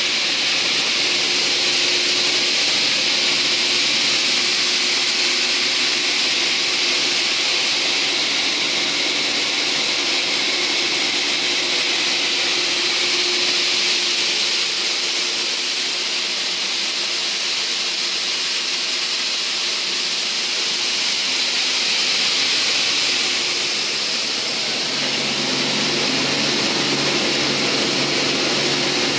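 TOS Svitavy PWR 422 twin-shaft multi-rip saw running without load, its upper and lower saw blades spinning with a steady high whine and hiss. A deeper hum joins in near the end.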